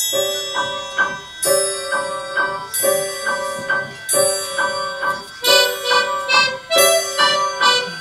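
A school orchestra starts playing, coming in all at once. It plays held chords under a short rhythmic figure that repeats about every second and a half.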